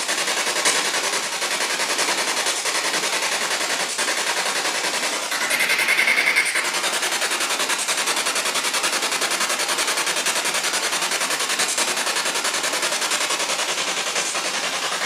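Loud, steady crackling static with a very fast flutter running through it, and a brief high tone about five and a half seconds in.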